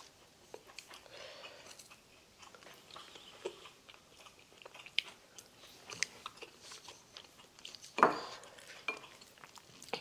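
Eating sounds: wooden chopsticks clicking and scraping against dishes while flaking grilled hairtail and stirring rice in a glass bowl, with soft chewing. A sharper click about eight seconds in is the loudest sound.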